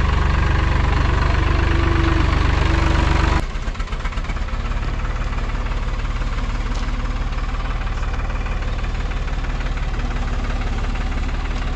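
Hattat 4x4 tractor's diesel engine running hard, then dropping abruptly to a quieter, lower running about three and a half seconds in, and carrying on steadily.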